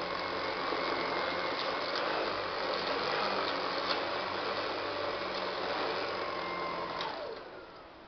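Upright vacuum cleaner running steadily, then switched off about seven seconds in, its motor winding down with a falling whine.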